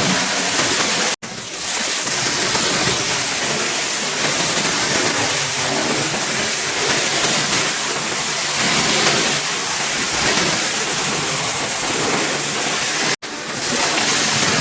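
Pressure washer jet spraying water onto a car, a loud steady hiss that breaks off for an instant twice, about a second in and near the end.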